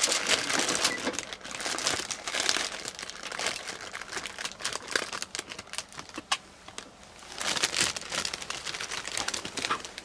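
Plastic bag crinkling and rustling in bursts as cabbage is taken from it and packed into a cooking pot. The crinkling is densest in the first few seconds, eases off, and comes again in a short bout near the end.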